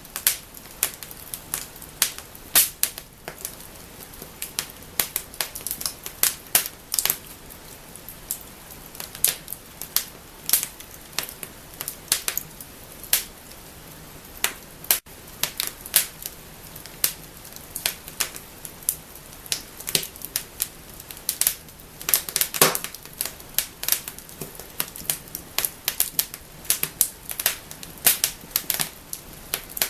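Wood fire burning in a fireplace, crackling and snapping with irregular sharp pops over a low steady hiss. A dense cluster of louder pops comes about three-quarters of the way through.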